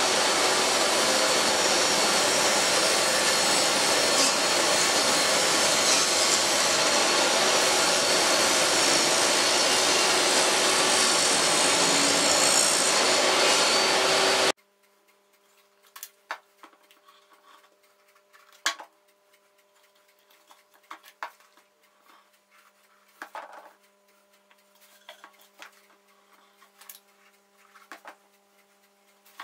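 A table saw running steadily while a pine board is pushed across its blade. The sound stops abruptly about halfway through, and only scattered light taps and clicks of wooden pieces being handled follow.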